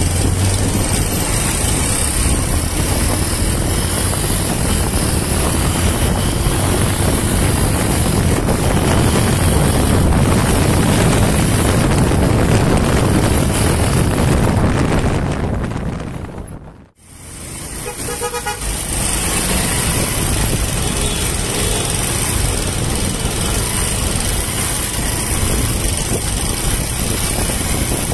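Honda TMX 125 single-cylinder motorcycle riding in city traffic, its engine running under a steady rush of wind on the microphone. The sound drops out briefly about two-thirds of the way through and then picks up again.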